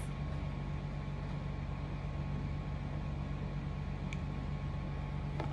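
Steady low hum and hiss of background room noise, with one faint tick about four seconds in.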